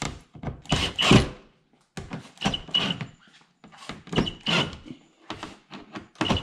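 Cordless drill/driver running in short bursts, six or seven brief whirs with pauses between, as it drives screws up into a car's front splitter.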